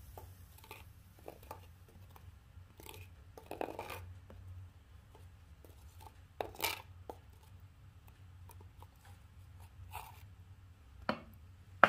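A metal spoon scraping and clinking inside a steel pot of molten metal while the dross is skimmed off, in short irregular scrapes with a few sharper clinks, over a low steady hum.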